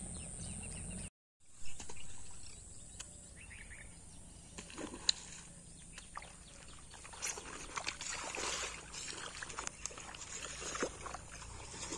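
Water splashing in short bursts from a hooked snakehead thrashing at the surface. There is a sharp splash near the start, and the splashing comes thicker in the second half.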